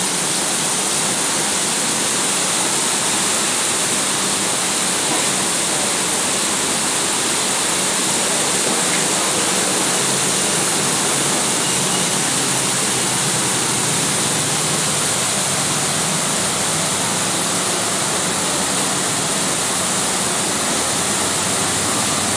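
Heavy rain pouring steadily, a dense even hiss.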